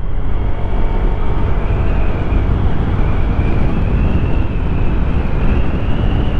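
Honda PCX 160 scooter's single-cylinder engine pulling at full throttle, nearly buried under heavy wind rumble on the microphone at speed. A faint whine climbs slowly in pitch as the scooter gathers speed.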